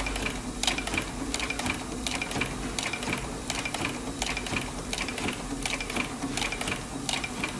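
Industrial sewing machine stitching fabric: a steady motor hum under rapid, uneven mechanical clicking from the needle and feed.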